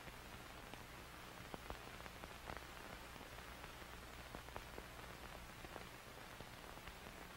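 Faint steady hiss with a low hum and scattered soft, irregular clicks.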